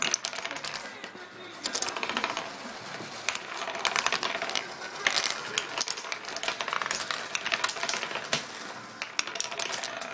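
Wooden nickels (wooden token discs) spinning on a wooden tabletop, rattling in quick runs of clicks as they wobble down and drop flat, several going at once.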